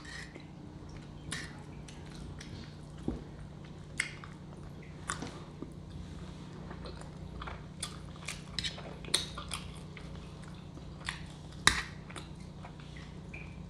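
Close-up mouth sounds of a person chewing food, with scattered short wet smacks and clicks, over a steady low hum.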